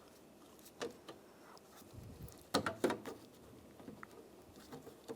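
Light plastic clicks and handling taps from an interior door handle and its latch cable being fitted: a click just under a second in, then two close together about two and a half seconds in.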